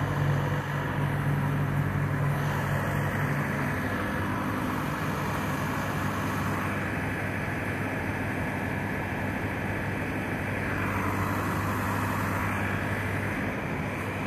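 Idling diesel truck engines, a steady low hum. One of the low tones drops out about four seconds in while the rest of the hum carries on.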